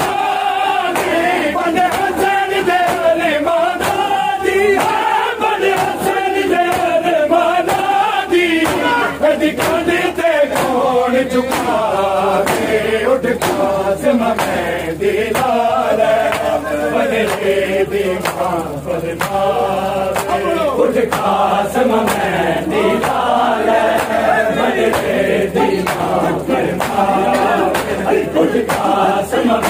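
A matami party of men chanting a noha, a Shia lament, in unison, kept in time by regular chest-beating matam strikes, about two a second.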